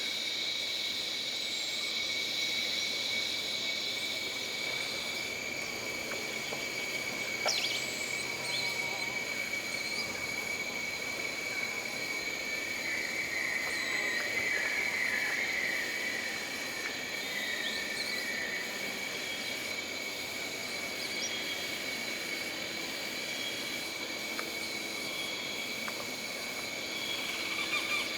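Jungle ambience: a steady high drone of insects holding two continuous tones, with a few short bird chirps and a rattling insect-like trill in the middle.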